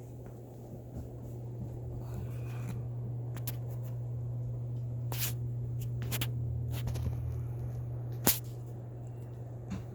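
Ceiling fan running on high: a steady motor hum with scattered ticks from its light bulbs rattling in the light kit, one sharper click about eight seconds in.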